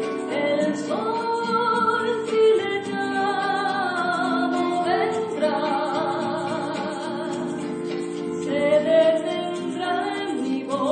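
Music with a singer holding long, wavering notes over instrumental accompaniment.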